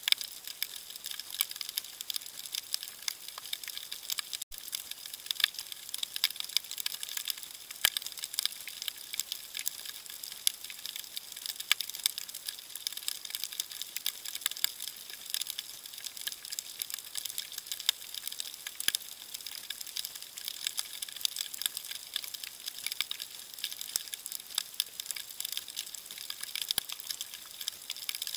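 Underwater crackling: a dense, steady patter of countless tiny sharp clicks, the reef chorus of snapping shrimp picked up by a submerged camera. It cuts out for an instant about four and a half seconds in.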